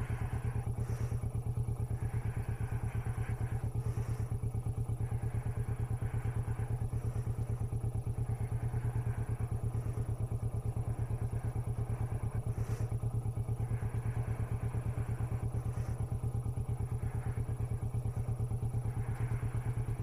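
Kawasaki Vulcan S's 649 cc parallel-twin engine running at low, steady revs with an even pulse as the bike is ridden slowly, with a few faint knocks.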